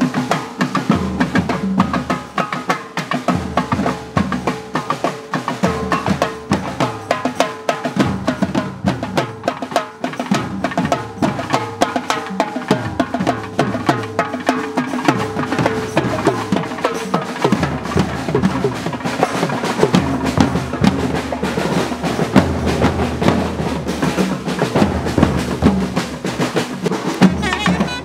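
A drum band playing: a stand-mounted set of metal-shelled drums struck with sticks, together with hand-held drums, beating out fast, dense rhythms. A steady held tone sounds under the drumming for roughly the first half.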